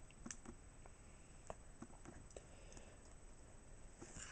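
Faint, scattered small clicks and rustles of Pokémon trading cards being handled and moved on to the next card.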